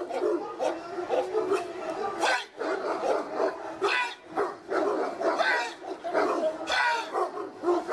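Fila Brasileiro dog barking repeatedly in quick succession at a man who confronts it with a stick during a temperament test.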